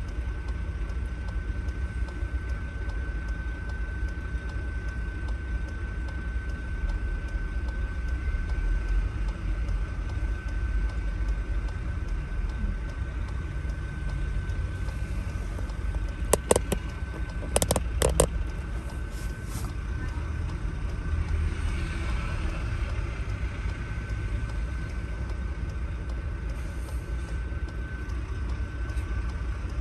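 Queued road traffic idling, with double-decker buses alongside, heard from inside a car: a steady low engine rumble with a thin steady high tone over it. A little past halfway comes a brief cluster of sharp clicks.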